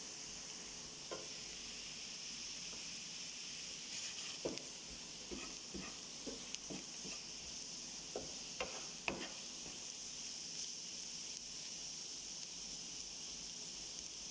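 Sliced onions frying in oil in a nonstick frying pan with a steady sizzling hiss. A wooden spatula stirs them, scraping and knocking against the pan a dozen or so times in the middle.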